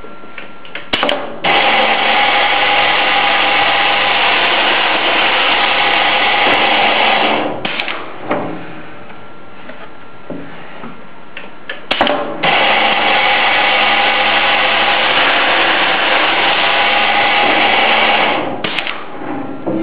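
Minifix drilling machine running, with two loud boring passes of about six seconds each, each beginning just after a sharp click, and a lower steady running sound between them.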